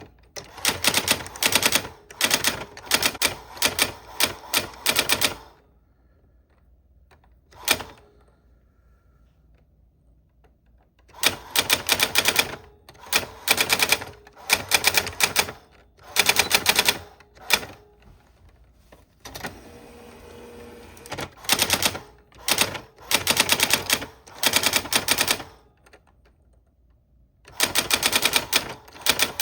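Old typewriter being typed on: rapid keystrokes in bursts of a few seconds, broken by pauses, with a single lone strike during the first long pause.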